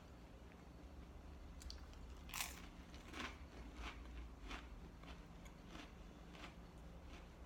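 Saltine cracker crunching as it is bitten and chewed: a crisp first crunch about two seconds in, the loudest, then a string of fainter crunches roughly every two-thirds of a second, over a faint low steady hum.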